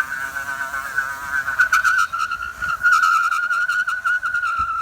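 Electric moped's motor whining at a steady high pitch that wavers slightly, with a few faint clicks.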